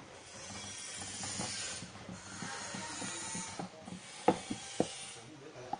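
Puffy paint being squeezed from its tube into clear glue: a sputtering hiss of air and paint in two long squeezes, then a few sharp plastic clicks after about four seconds.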